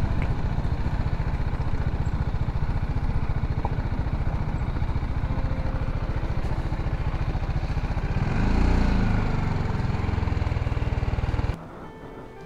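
BMW G310GS motorcycle's single-cylinder engine running at low speed and idling, with a brief rise and fall in engine note about eight seconds in. It cuts off suddenly near the end.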